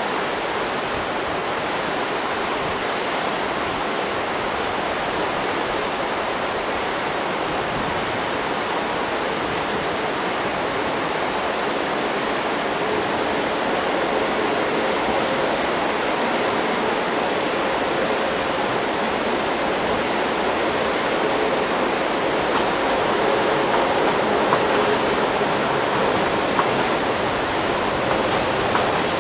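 Mountain river rushing over boulders in a gorge, a steady roar of white water. From about halfway a passing electric train adds a faint hum under the water, and a thin high whine comes in near the end.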